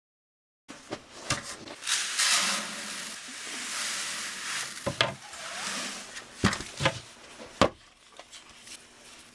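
Dry chicken feed poured from one plastic bucket into another, a steady rushing hiss of the grain for a few seconds. Sharp knocks of plastic buckets and lids being handled around it, the loudest near the end.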